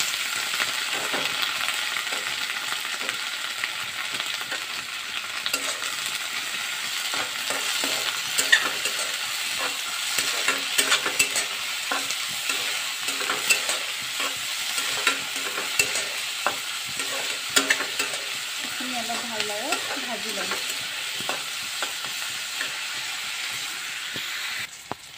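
Chopped vegetables (potato, peas, cabbage, carrot) sizzling in hot oil in a kadhai, stirred with a spatula that scrapes and clicks against the pan. The clicks come thickest through the middle, and the sizzle drops away just before the end.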